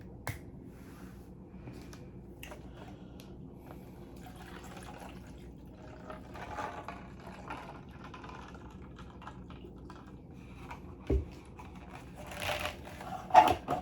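Drinking cranberry-grape juice with ice in it: the liquid and a piece of ice get in the way. A short thump comes about eleven seconds in.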